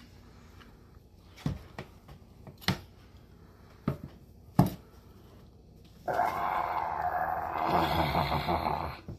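Knife and shark being handled on a plastic cutting board: a few sharp knocks, about one a second. About six seconds in, a loud, steady rushing noise starts suddenly and runs for about three seconds before stopping abruptly.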